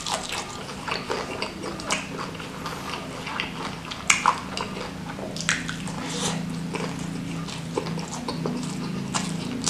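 Close-miked eating of crispy fried chicken skin coated in chili sambal: sharp crunchy bites and wet chewing and lip smacking, with the loudest crunches about four seconds in.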